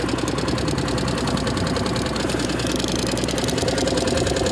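A small boat's motor running steadily at low speed, with a fast, even pulse.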